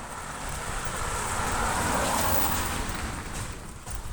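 A car passing, its tyre noise on the wet, snowy road swelling to a peak about halfway through and then fading. Wind buffets the microphone throughout.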